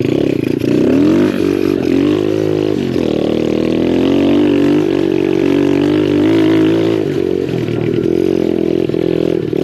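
Single-cylinder four-stroke Lifan 125 engine of a pit bike, ridden along a trail. Its pitch rises and falls with the throttle, with several quick swoops in the first few seconds.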